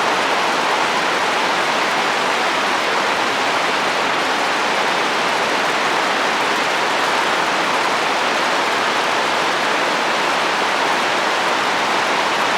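Steady heavy rain falling on a roof, a dense even hiss with no separate drops or gusts standing out.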